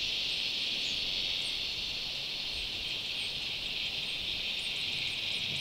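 Steady high-pitched chorus of summer insects, unbroken throughout, with a few faint short chirps above it.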